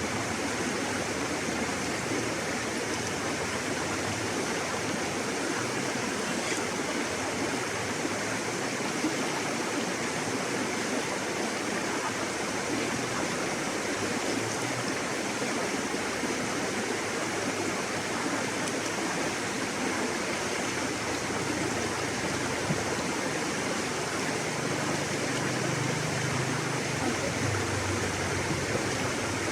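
River water rushing and splashing steadily over rocks, a continuous even rush with a slightly deeper rumble near the end.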